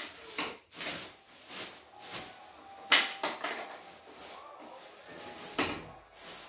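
Plastic bubble wrap being handled and pulled about, rustling with a string of sharp crackles, the loudest about three seconds in.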